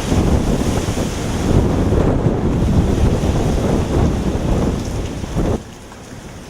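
Hurricane feeder-band wind gusting hard and buffeting the microphone with a deep rumble, with rain mixed in. The noise drops suddenly near the end to a softer, steady rain hiss.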